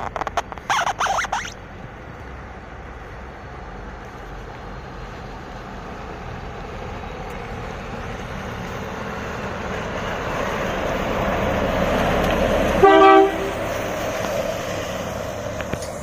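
A dump truck approaching and passing, its engine and tyre noise building steadily, with a short air horn blast of about half a second as it draws level, the loudest sound; the rumble then falls away as it drives off.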